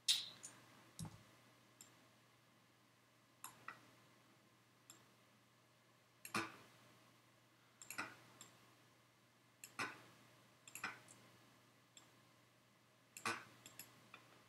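Computer mouse and keyboard clicks, short and irregular, some in quick pairs or triples, as 3D modelling software is worked by hand, over a faint steady low hum.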